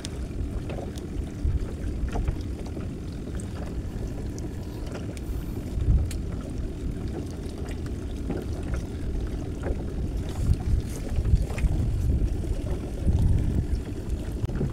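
Wind rumbling on the microphone over water moving around a small boat, swelling in gusts a few times, with a few faint clicks.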